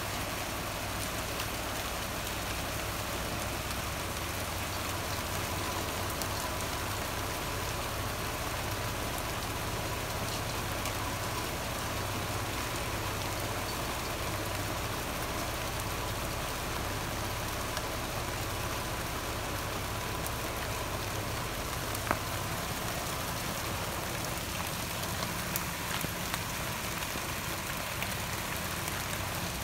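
Steady rain falling on a patio garden's plants and pots, an even hiss of many drops, over a low steady rumble. One sharp tick about two-thirds of the way through and a few smaller ticks shortly after.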